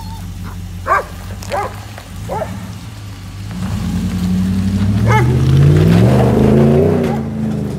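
A 2016 Ram 1500's 5.7 Hemi V8 running through an aftermarket muffler kit, giving a throatier but tame exhaust note. It rumbles low as the truck rolls past, then rises as the truck accelerates away and is loudest about five to seven seconds in. A dog barks about five times over it, mostly in the first few seconds.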